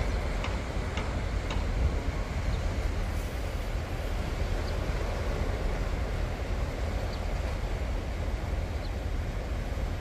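Small waves washing onto a sandy beach, a steady rushing hiss over a low rumble, with a few faint ticks in the first couple of seconds.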